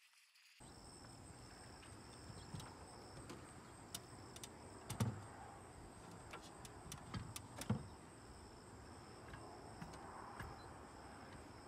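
Steady high-pitched insect chirring, starting about half a second in, with a few faint sharp knocks from work at the fence top, the loudest about five seconds in.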